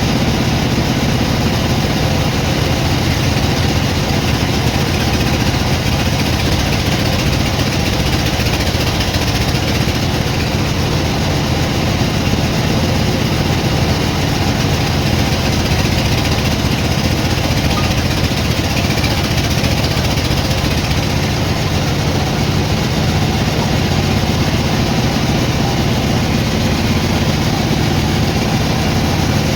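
Sawmill machinery running with a steady, unchanging engine drone.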